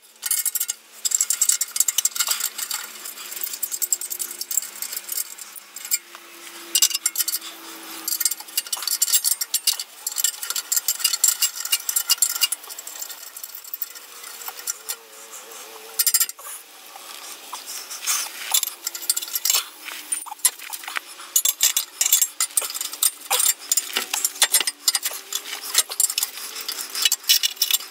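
Ratcheting wrench clicking in quick runs as bolts are turned out of a steel exhaust header flange, with light clinks of metal on metal.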